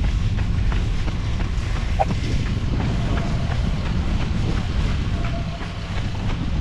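Running footsteps on a paved path, about three strides a second, under a steady low wind rumble on the moving microphone.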